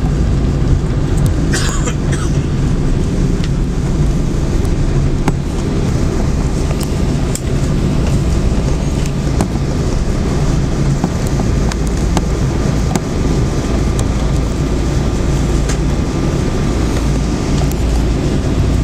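Cabin noise of a Boeing 777-200ER rolling on the ground just after landing: a steady low rumble of engines and landing gear, with scattered small clicks and knocks.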